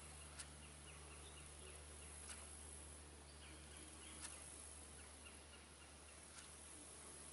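Near silence: faint outdoor marsh ambience with small high chirping calls, a sharp tick about every two seconds, and a steady low hum underneath.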